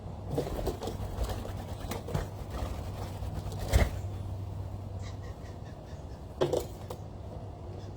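Birds at a feeding spot: short low calls and scattered knocks and taps. The sharpest knock comes a little before halfway, over a steady low hum.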